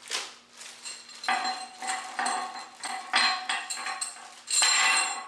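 Small steel cable-hanger brackets clinking and rattling together as they are handled and sorted, in a string of short bursts with the longest and loudest near the end.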